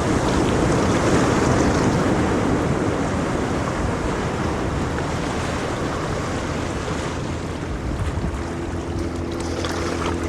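Ocean waves rumbling, a continuous wash of surf that swells at the start and then stays steady. A faint, steady low hum joins about eight seconds in.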